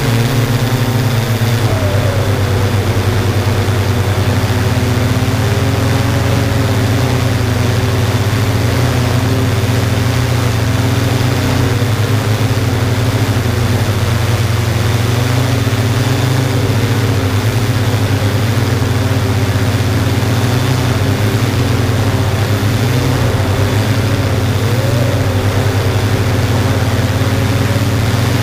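Yuneec Typhoon G drone's motors and propellers humming steadily in flight, with small wavers in pitch now and then as it manoeuvres.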